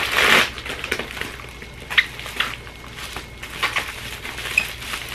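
Thick plastic courier mailer and bubble wrap crinkling and rustling as they are pulled and torn at by hand. A loud rustle comes right at the start, then scattered sharp crackles.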